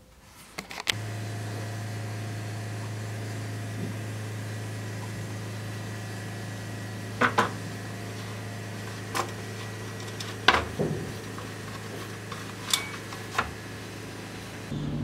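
A steady machine hum in a workshop, starting about a second in, with a few sharp knocks and clicks as leather pieces and tools are handled on a wooden workbench.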